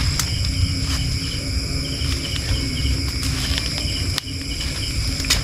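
Night insects, crickets among them, calling together: steady high-pitched trilling with a pulsing chirp in it, over a low rumble and a few faint clicks.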